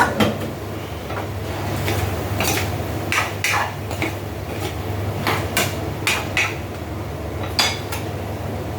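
Kitchenware knocking and clinking: a dozen or so irregular sharp strikes, some ringing briefly, over a steady low hum.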